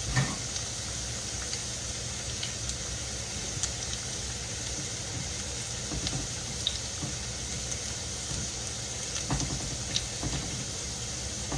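Hush puppies deep-frying in hot grease: a steady sizzle with a few faint pops.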